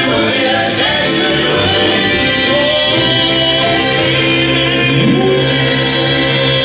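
Southern gospel male quartet singing in close four-part harmony into microphones, with keyboard accompaniment, holding a long chord through the second half.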